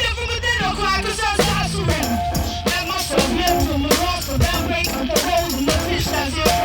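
Hip-hop band music: drum kit and bass with a vocal over the top, at a steady full level.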